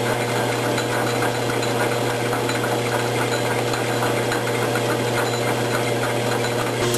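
Logan 922 metal lathe running steadily under power, its parting tool cutting a relief groove in the turning workpiece: an even hum of motor and gearing with no pauses.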